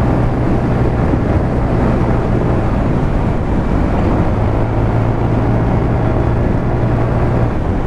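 Riding noise picked up by a helmet-mounted mic with no foam windscreen: wind rushing over the microphone, with a motorcycle engine's steady low hum underneath.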